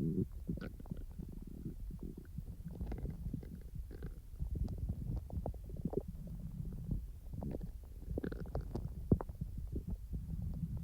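Human stomach rumbling and gurgling during digestion: an irregular low rumble broken by many small pops and gurgles.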